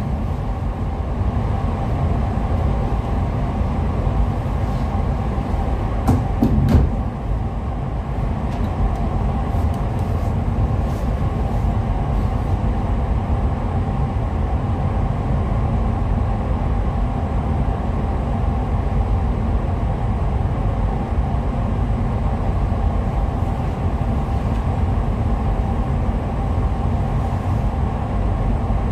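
Paint spray booth's air system running with a steady low drone and an even hum, unchanged while the painter works. A few brief knocks about six seconds in.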